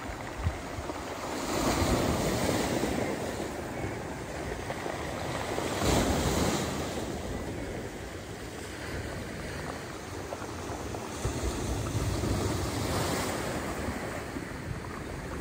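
Sea waves washing in over rocks and stones, swelling in surges about every few seconds, three times here, with wind rumbling on the microphone.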